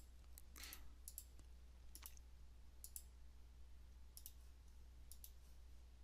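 Near silence with about half a dozen faint, short clicks scattered through it.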